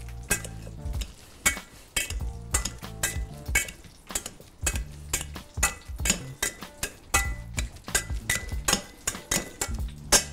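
A metal potato masher mashing cooked sweet potato in a stainless steel pot, knocking and clinking against the pot's sides and bottom in quick, irregular strokes. Background music plays underneath.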